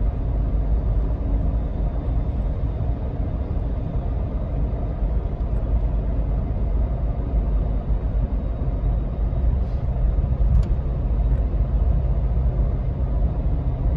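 Inside the cab of a 1999 Jeep Cherokee XJ on the move: its 4.0-litre straight-six engine running steadily under road and tyre noise, a constant low rumble.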